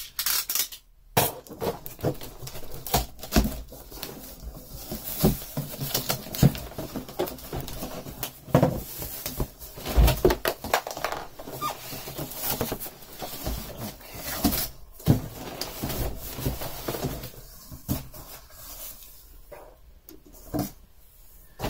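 Cardboard shipping box being opened by hand: packing tape slit and pulled, then the flaps pried open and folded back, with irregular scraping, rustling and knocks of cardboard.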